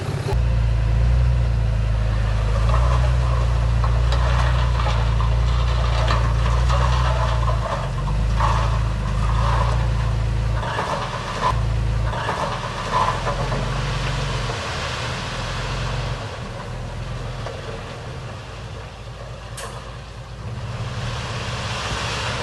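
Heavy diesel construction machinery running, with stone clattering and scraping around the middle. The engine eases off after about sixteen seconds.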